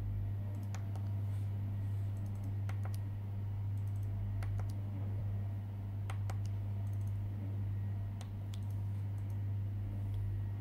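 Soft clicks of fingertip presses on an illuminated membrane switch keypad, about a dozen spread irregularly, over a steady low hum that is the loudest thing heard.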